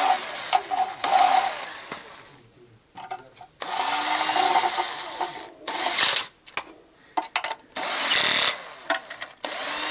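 Cordless drill-driver running in several short bursts of motor whine, with pauses and a few clicks between them, as it tightens the bolts holding the oil filter (strainer) of a Toyota Camry's automatic transmission.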